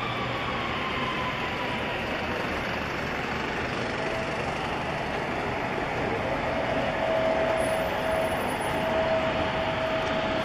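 Steady roar of aircraft and ground machinery on an airport apron. A whine falls in pitch during the first second or so, and another steady whine sets in about four seconds in, growing stronger a little later.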